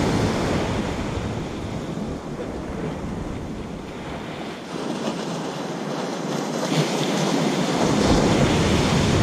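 Ocean surf breaking and washing up the beach, a continuous rushing that ebbs and swells, loudest near the end as a wave breaks, with wind buffeting the microphone.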